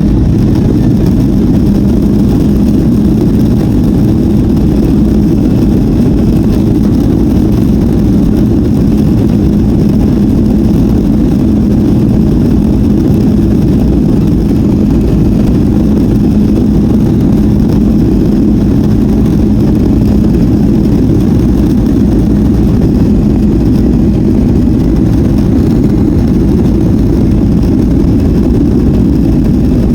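Boeing 757-200's jet engines at high thrust on departure, heard from inside the cabin as a loud, steady rumble with a constant low hum.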